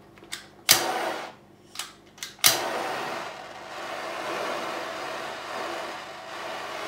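Handheld butane torch: several sharp igniter clicks, then the flame catches about two and a half seconds in and hisses steadily.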